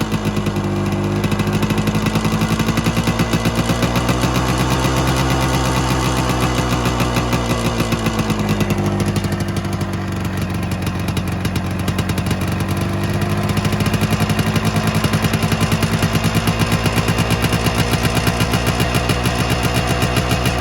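1974 Maico 250 two-stroke single-cylinder engine running through an FMF Q-core muffler/spark arrestor, with a rapid, even popping exhaust beat. Its pitch rises and falls gently a couple of times in the first half, then holds steady.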